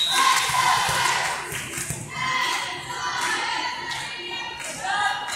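Spectators in a gym cheering and calling out, many voices at once.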